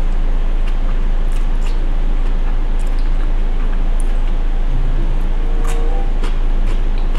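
A steady low hum under faint, scattered small clicks and wet smacks of someone eating noodles.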